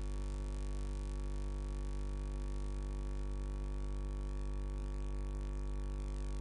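Steady electrical mains hum from the commentary sound system: an unchanging buzz made of a low tone and a stack of higher overtones.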